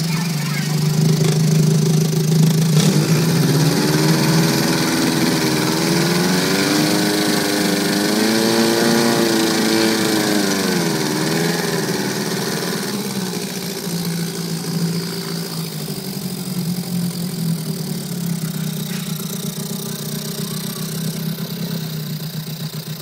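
Johnson TD-20 5 hp two-stroke twin outboard motor running, its pitch rising and falling several times between about 3 and 12 seconds in as the speed-control lever is worked, then settling back to a steady, slightly quieter run.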